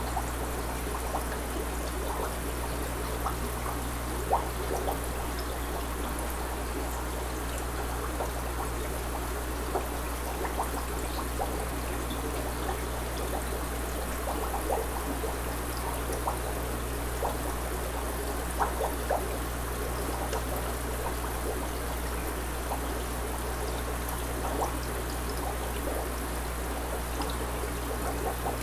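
Water trickling steadily in a goldfish tub, dotted with small drips and bubbles, over a constant low hum.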